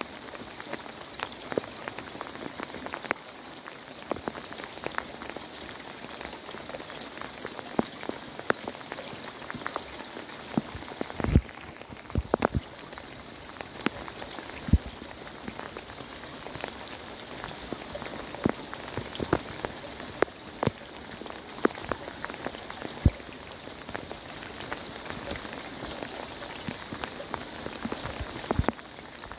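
Heavy rain falling steadily, with frequent irregular sharp taps of drops landing close by.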